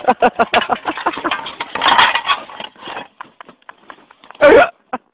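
A man's voice in rapid, choppy pitched bursts, like laughing, for the first couple of seconds, then a single short, loud, rasping burst near the end.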